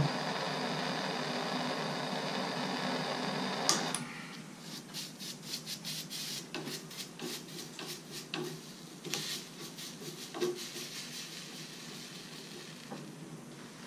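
A plumber's torch flame hissing steadily on a copper pipe fitting, cut off with a click about four seconds in. After that, irregular scraping and rubbing of a hand tool on the copper pipe.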